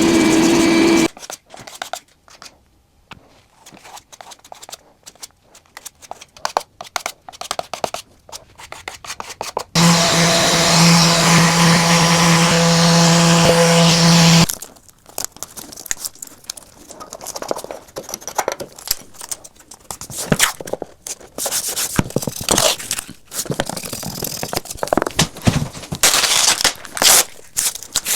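Scraping and rubbing on a surface during paint prep, in uneven strokes. About a third of the way in, a power tool runs steadily for about five seconds, then stops.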